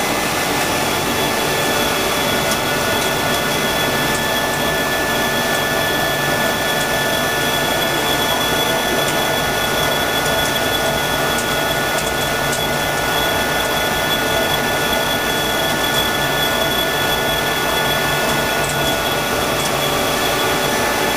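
Dainichi MG75 CNC turning machine running under power, a steady mechanical noise with several steady high-pitched tones over it.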